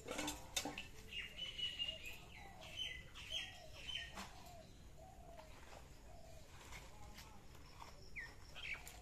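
Small birds chirping in short, repeated calls, with a few brief knocks in the first second.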